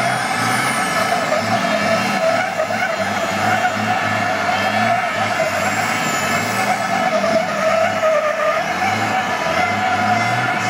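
MAN racing truck's diesel engine held at high revs while the truck spins donuts, its rear tyres skidding continuously on the asphalt.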